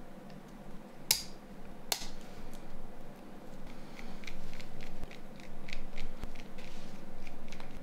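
Two sharp plastic clicks, then a run of quick light ticks and scrapes as a small precision screwdriver works screws into a mobile phone's plastic housing.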